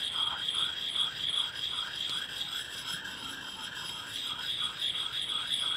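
A sharpening stone rubbed in small circles against a hatchet's steel edge, wetted with saliva: an even, rhythmic scraping at about three to four strokes a second as the bevel is honed to raise a burr. A steady high whine runs behind it.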